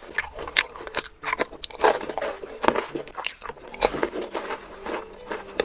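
Close-miked mouth sounds of chocolate being bitten and chewed: a run of irregular sharp crunches and crackles, several a second, loudest about two seconds in.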